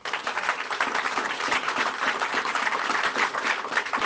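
A group of people applauding: dense, steady clapping.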